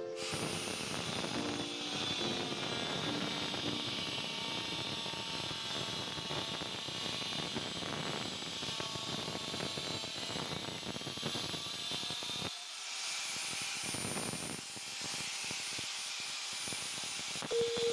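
Electric angle grinder with a cutting disc running and cutting through PVC pipe, a steady high motor whine with a grinding hiss. About two-thirds through, the lower cutting noise drops away and the whine rises a little as the disc comes free of the plastic.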